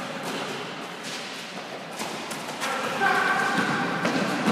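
Indoor basketball game in an echoing hall: the ball thumping, sneakers on the court and players' voices.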